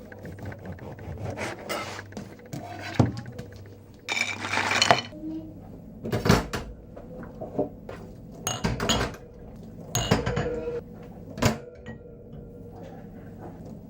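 Cutlery and crockery clinking and knocking as food is prepared: a knife and plates, from buttering bread for sandwiches. Sharp knocks come irregularly throughout, with a longer, noisier sound about four seconds in.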